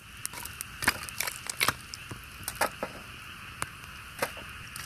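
Campfire of split firewood crackling, with irregular sharp pops and snaps over a steady high hiss.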